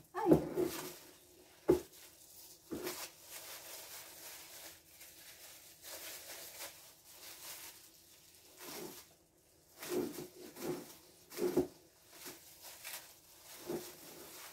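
Jam jars being handled and wrapped for packing on a table: irregular knocks and short rustling handling noises, several louder ones close together near the start and again about two-thirds of the way through.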